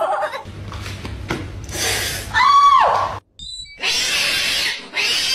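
A domestic cat yowling: a loud cry that rises and then falls about halfway through, followed by two harsh, hissing bursts of about a second each.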